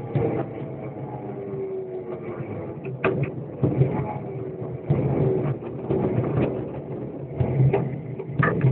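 An open vehicle's engine running as it drives along a road, with many short knocks and rattles.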